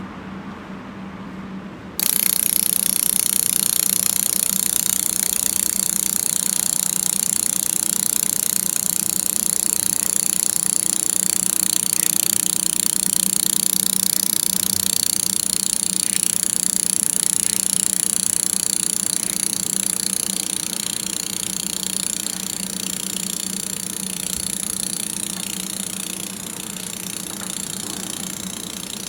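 Laser welding machine at work: a loud steady hiss starts suddenly about two seconds in and slowly fades over the last third, over the machine's steady hum.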